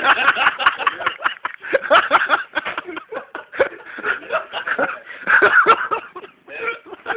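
People laughing, in short choppy bursts of voice, with a few sharp clicks.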